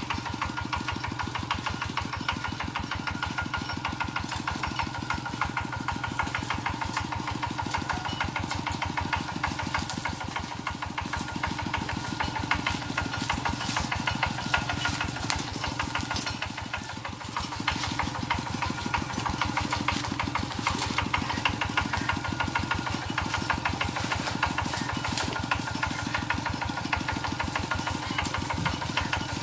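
Kubota RT120 single-cylinder diesel engine on a two-wheel walking tractor, running steadily with a fast, even chugging beat.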